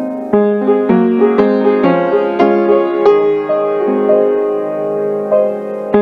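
Piano music, with notes and chords struck at an even, moderate pace.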